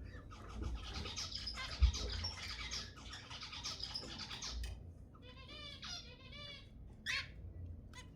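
Zebra finches calling, many short chirps overlapping at once, then a song of buzzy, wavering stacked notes about five seconds in and a brief call near the end. A single low thump about two seconds in.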